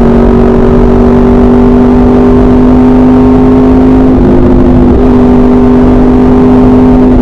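Motorcycle engine running through an SC Project aftermarket exhaust, holding steady revs while riding, with a brief drop and recovery in engine speed about four seconds in.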